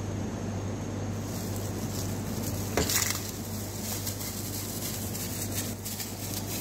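Steady hum of kitchen equipment under counter handling noise: one sharp knock a little under three seconds in and a few lighter clicks later, as bottles are handled.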